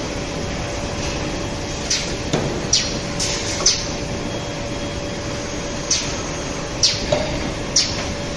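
Automated cup-packaging machine running: a steady mechanical hum with a faint steady whine, and short sharp hisses at irregular intervals, about seven in all, with a dull knock a little over two seconds in.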